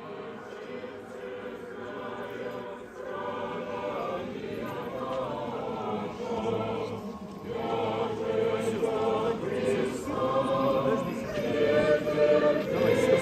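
Choir singing Orthodox church chant, several voices together, getting louder toward the end.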